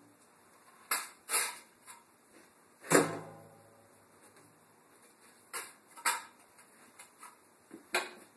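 Steel hand truck clanking against a water heater's metal tank as it is set against it, strapped and tipped back: a series of sharp knocks, the loudest about three seconds in with a hollow ringing that dies away.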